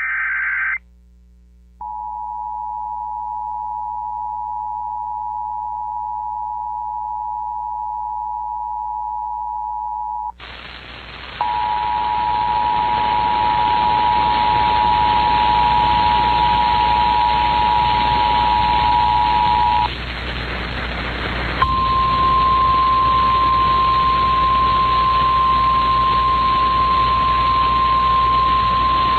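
Emergency Alert System tones for a tornado warning. A brief higher burst of the digital header gives way to the two-tone attention signal, held steady for about eight seconds. Radio static comes in about ten seconds in, and the two-tone signal sounds again over it. About twenty-two seconds in it changes to a single steady tone, the NOAA Weather Radio warning alarm.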